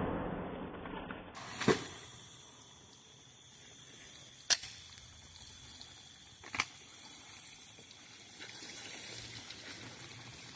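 Water from freshly shot jugs splashing down and settling, fading out over about the first second. A quiet stretch follows, with three sharp clicks and a high hiss that swells and fades roughly every second and a half.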